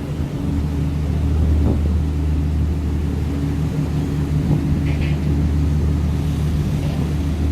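Sightseeing cruise boat's engine running with a steady low hum, heard on board.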